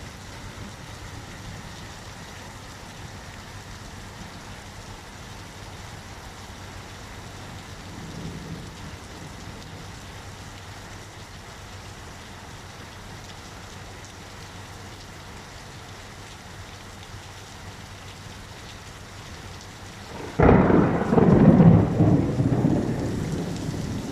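Steady rain falling in a thunderstorm, with a faint low rumble of thunder about eight seconds in. Near the end a loud thunderclap breaks in suddenly and rumbles on.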